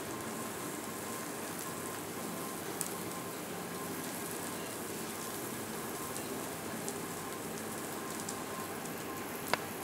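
Prawns sizzling steadily on a hot grill, an even crackling hiss, with a sharp click near the end.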